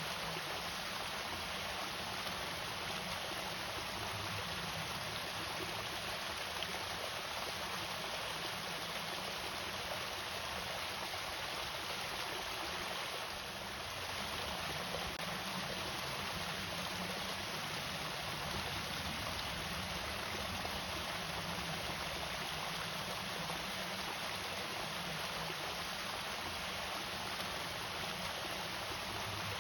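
Water pouring steadily over a small irrigation waterfall, an even rushing splash.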